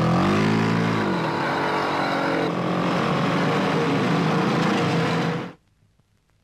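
Motorcycle engines revved once, rising and falling in pitch, then running steadily as the bikes ride off; the sound cuts off suddenly about five and a half seconds in.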